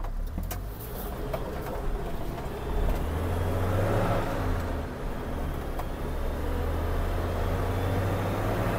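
Engine and road noise of a GAZ Sobol 4x4 van heard from inside the cabin as it pulls away and picks up speed, a low hum that grows louder about three seconds in.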